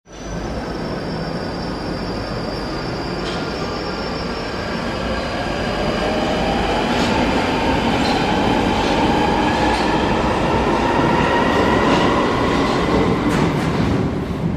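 Subway train pulling away and gathering speed: a steady rumble rises in level while the traction motors' whine climbs in pitch. A few sharp clicks come near the end.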